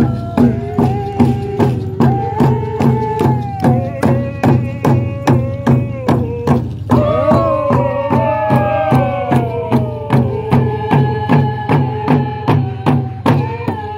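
Hand drums beaten together in a steady rhythm of about three beats a second, under a group singing a drum song. Partway through, the voices glide down in pitch.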